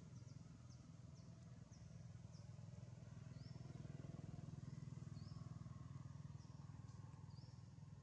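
Faint outdoor ambience: a steady low rumble under high, thin chirps, with a short rising chirp about every two seconds.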